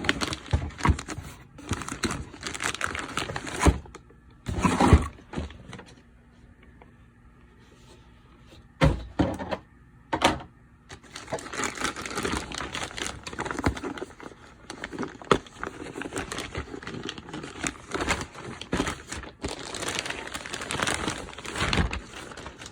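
Packaging being handled while a headset carrying case is unpacked: cardboard and plastic rustling and crinkling, with several thumps and knocks. It goes quieter for a couple of seconds in the middle, then the rustling resumes.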